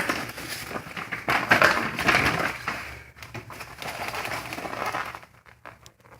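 Product packaging being pulled open by hand: irregular crackling and rustling with small clicks, loudest in the first half, then dying away after about five seconds.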